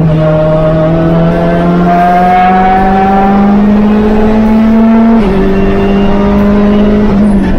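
Hyundai Veloster N TCR race car's turbocharged 2.0-litre four-cylinder under hard acceleration, heard from inside the cabin. Its pitch climbs steadily for about five seconds, then drops suddenly at an upshift, holds steady and dips again near the end.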